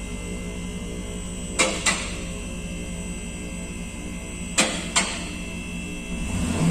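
Steady low mechanical hum with a sharp double click about every three seconds.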